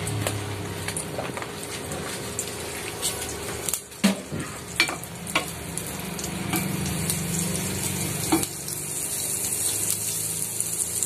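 Butter melting and sizzling in an enamel saucepan, stirred with a wooden spatula that knocks against the pan now and then. The sizzle grows stronger in the last few seconds as the butter heats.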